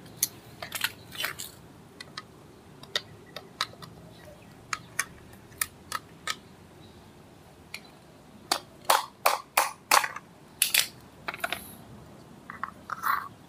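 Sharp metallic clicks and clinks of hand tools and brake springs as the old shoes are worked off a Proton Wira's rear drum brake. Scattered single clicks at first, then a quicker run of louder clinks about two-thirds of the way through.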